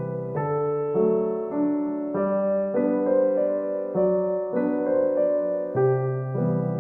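Background music: a gentle piano melody with chords, new notes struck about every half second.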